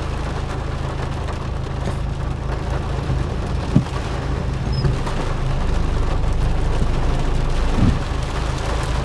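Heavy rain drumming on the car's roof and windscreen, heard from inside the cabin, over the steady hum of the car's idling engine. Two short thuds come about four seconds in and near the end, as the windscreen wiper sweeps.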